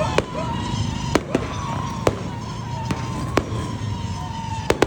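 Aerial fireworks going off: a run of about eight sharp bangs at uneven intervals, a few coming in close pairs. Under them runs a steady, slightly wavering high tone.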